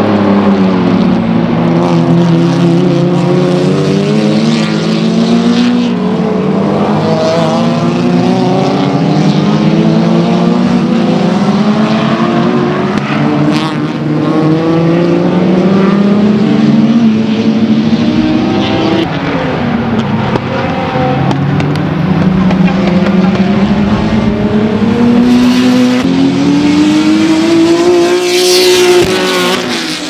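Touring race cars' engines running at racing speed, pitch climbing and then dropping again and again as they accelerate through the gears and brake. Near the end one car passes close, its engine note rising sharply and then falling away.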